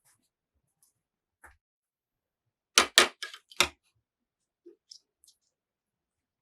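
Kitchen utensils knocking: a quick run of four or five sharp knocks about three seconds in, with a few faint ticks before and after.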